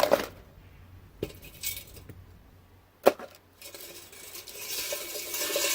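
Pieces of stripped copper wire clinking as they are dropped into a metal pot on a kitchen scale. There is a sharp clink about three seconds in, then a steady rustle and scrape of loose wires being shifted in the pot.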